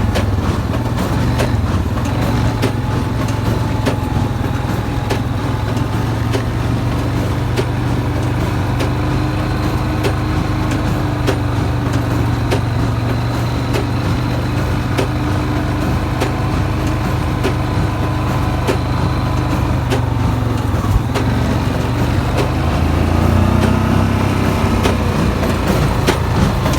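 Tractor engine pulling a hay baler, running steadily under load, with regular sharp clicks from the baler about once a second. The engine pitch shifts near the end.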